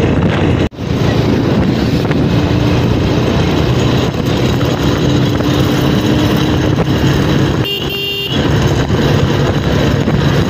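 Honda motorcycle engine running steadily under way, with road and wind rush on the microphone. A horn toots briefly about three quarters of the way through.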